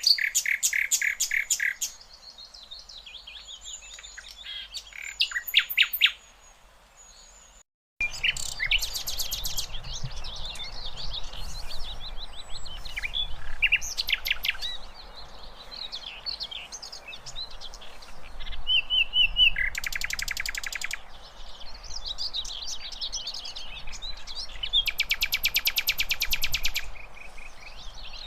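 A sikatan londo flycatcher singing loudly in a string of fast, rattling trills and sharp chirps, with a brief break about a third of the way in.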